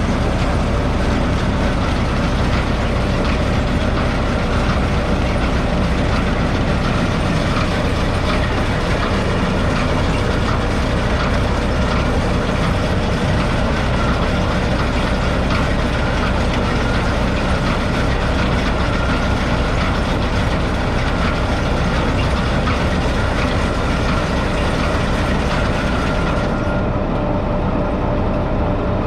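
The Perkins 3.9-litre four-cylinder diesel of a 1970 Dronningborg Dania D1200 combine harvester running steadily, with a high hissing noise over it that drops away near the end.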